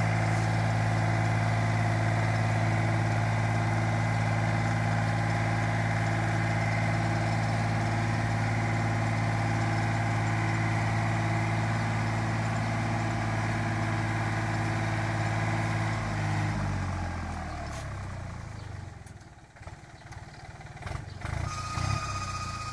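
Yanmar FX215 compact tractor's diesel engine running steadily under load while pulling a potato digger through the soil. About three-quarters of the way through, the engine sound falls away sharply, leaving a few faint knocks near the end.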